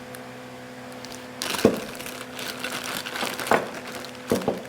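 Packaging crinkling and rustling as parts are unwrapped by hand, starting about a second in, with a few light knocks. A fan hums steadily underneath.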